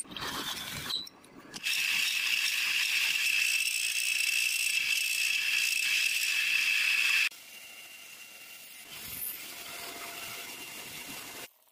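Drill press spinning a sanding drum against a Damascus steel karambit blank: a steady high-pitched whine with grinding hiss that stops abruptly about seven seconds in. After it, a quieter, steady grinding hiss from a belt grinder on the blade.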